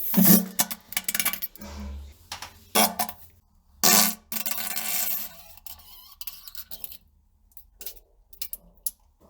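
A string of short fart sounds, some sputtering and one low and buzzing, with a longer blast about four to five seconds in and a few faint ones near the end.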